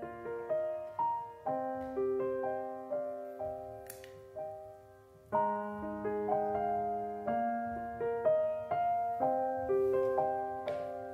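Soft solo piano background music, slow notes and chords.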